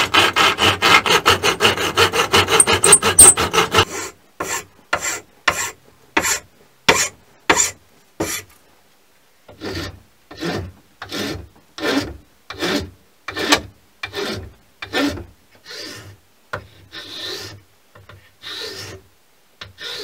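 Walnut wood being worked by hand: a fine-toothed saw cuts into the blank in fast, loud strokes for about four seconds, then a file shapes the handle edge in slower single rasping strokes, about one and a half a second, with a short pause near the middle.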